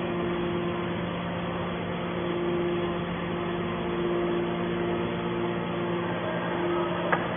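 Baler's power unit running steadily with a low hum, a higher tone coming and going over it, and a single click near the end.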